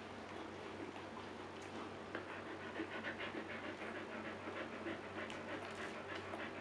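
Siberian husky dam panting rapidly and steadily in labor, with more puppies still to be delivered.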